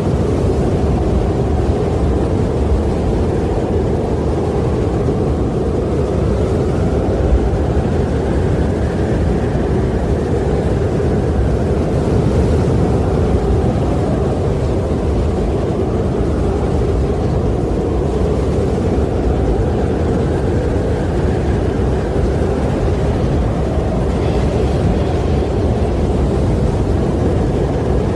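Wind blowing in a steady low rush, with slow swells that rise and ease every several seconds.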